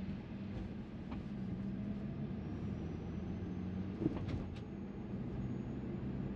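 Steady low road and tyre hum inside the cabin of a moving Tesla Model 3, with a few brief clicks about four seconds in.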